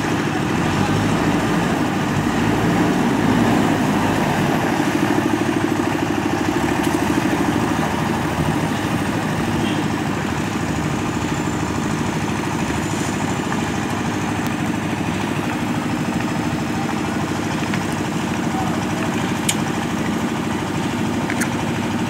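JCB 3DX backhoe loader's diesel engine running steadily as the machine manoeuvres, a little louder a few seconds in.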